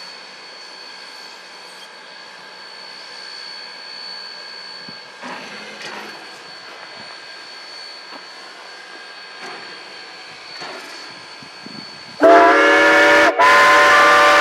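The steam whistle of narrow-gauge steam locomotive D&RGW 493, a K-37 Mikado, blows a loud chord near the end. It is broken once by a brief gap. Before it there is only a faint steady hiss and hum.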